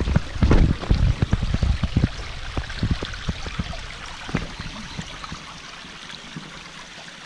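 A small rocky mountain stream rushing and trickling over stones. Dull low thumps come in a quick run over the first few seconds, then die away, leaving the steady flow.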